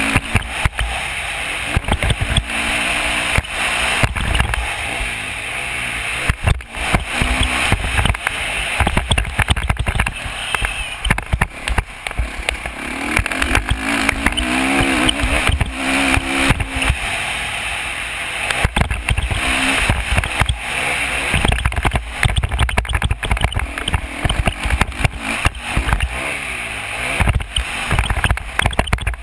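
Off-road motorcycle engine revving up and down as it is ridden over a dirt track, heavily buffeted by wind on the microphone, with frequent knocks from the bumps.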